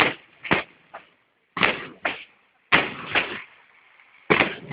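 Fireworks shells bursting in a series of sharp bangs, mostly in pairs about half a second apart.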